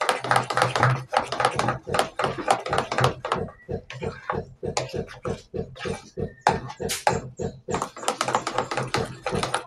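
Metal spoon beating thick bean batter in a dish, a quick run of wet slaps and clicks against the sides at about four strokes a second, stirring it until no lumps remain.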